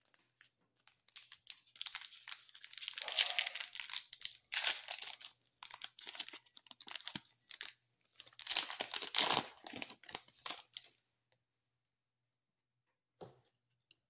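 Plastic foil wrapper of a trading card pack being torn open and crinkled, in irregular bursts of tearing and rustling that stop about three seconds before the end.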